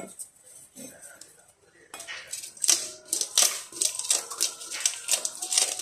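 A plastic fish scaler scraping scales off a fish in a stainless steel sink: rapid, rough scraping strokes, several a second, starting about two seconds in.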